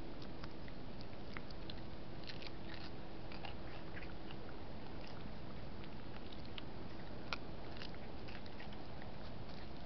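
Raccoon chewing food: a scatter of small crunching clicks over a steady hiss, with one sharper click about seven seconds in.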